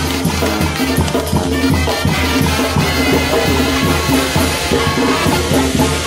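Loud music with a steady, driving beat of drums and bass.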